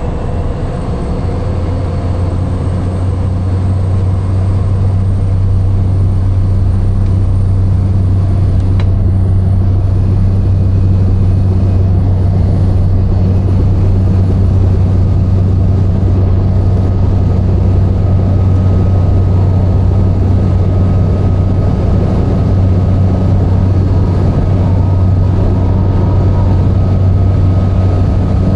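Cabin sound of a single-engine Cessna Caravan turboprop going to takeoff power. The engine and propeller drone swells over the first few seconds, then holds steady and loud. A faint high whine climbs slowly through the takeoff roll.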